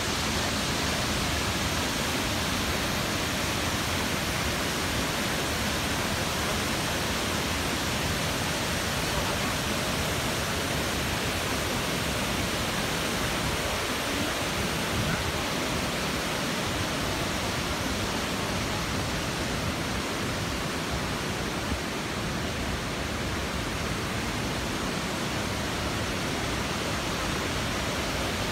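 Steady rushing of a tall waterfall pouring down a rock cliff into a pool, an even noise that does not change.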